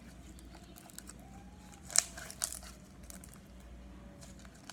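Red and orange slime being mixed by hand: faint crinkly, sticky handling sounds, with two sharp clicks about two seconds in.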